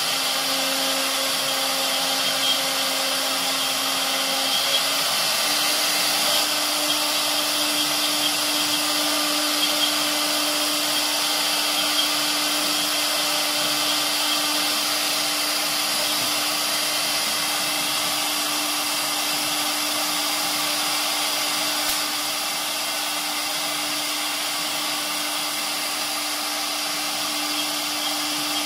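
Unistar USM1325 CNC router spindle running steadily while its bit engraves letters into a wooden board: a steady motor whine over a hiss of cutting. The whine steps up slightly in pitch about five seconds in.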